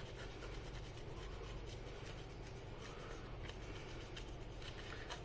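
Faint rubbing of a paper napkin over a laptop's processor chip, wiping away old dried thermal paste.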